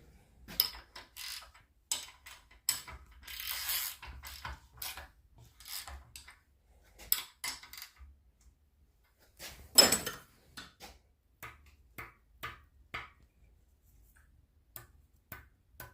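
Irregular metallic clicks and clacks from the parts of a Toyota 3SZ-VE engine being handled, with one loud ringing clank about ten seconds in.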